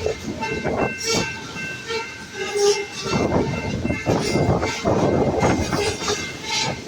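Loaded grain hopper cars of a freight train rolling past, wheels clattering over rail joints in uneven clusters over a steady rumble, with faint thin high-pitched tones running underneath.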